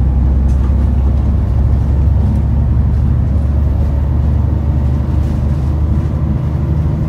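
Alexander ALX400 double-decker bus's diesel engine running under way, heard inside the lower deck: a loud, steady low drone with a faint whine rising slowly above it.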